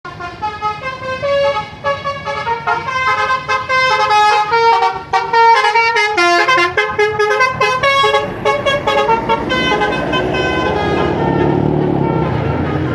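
Basuri V3 telolet musical air horn on a bus, playing a quick tune of stepping horn notes. About ten seconds in the horn stops and a steady low rumble carries on.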